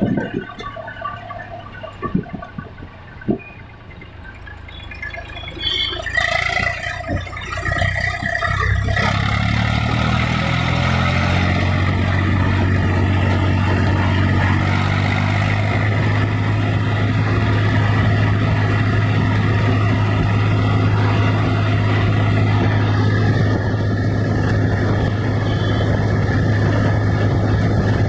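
Eicher 480 tractor's diesel engine running on the road, quieter and uneven with scattered clicks and rattles at first. About nine seconds in it rises to a loud, steady drone that holds to the end.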